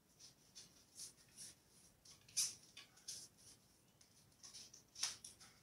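Faint, irregular light clicks, taps and rustles of hands handling parts at a mountain bike's rear wheel. Two sharper ticks stand out, about two and a half seconds in and near the end.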